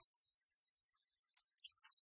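Near silence, with a few faint, brief soft sounds.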